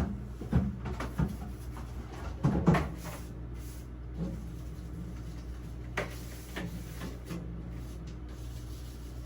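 Scattered knocks and clunks of a refrigerator's shelves, drawers and door being handled while its inside is wiped out, loudest around two and a half seconds in, then fewer and fainter knocks.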